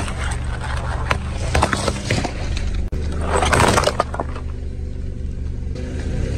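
Car tyre rolling over and crushing objects on pavement: a run of cracks, crunches and splatters, the loudest about three seconds in, over the car's engine running low underneath.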